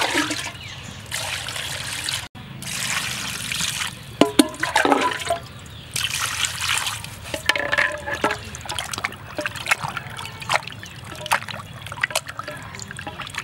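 Water poured from a plastic scoop splashing and trickling onto gutted fish in a plastic basin, with the fish being rinsed and handled in the water.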